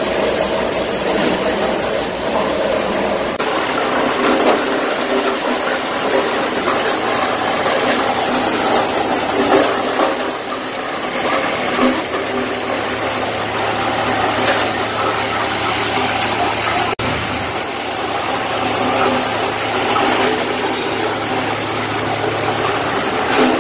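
Tractor-PTO-driven maize sheller-thresher running, a steady loud mechanical din with a tractor engine underneath, as shelled maize kernels stream out of its chute.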